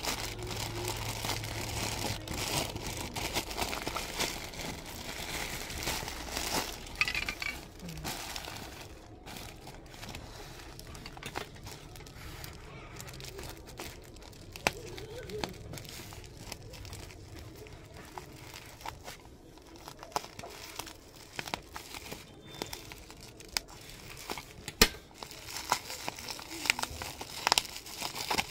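Plastic packaging crinkling as an orange plastic courier pouch and a bubble-wrapped parcel are handled and unwrapped, louder for the first several seconds, then quieter with scattered sharp crackles.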